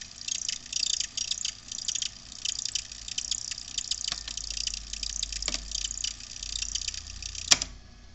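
Crackling and clicking noise from a vintage Blaupunkt tube radio's speaker in a gap between music, with a faint low hum underneath and one sharp click near the end.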